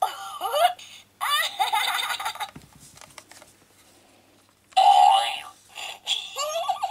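Talking Rosie toy engine (My First Thomas & Friends Railway Pals) playing electronic sound effects from its small speaker as its buffers are pressed: short rising chirps, a giggle-like effect, and a steady party-hooter toot about five seconds in.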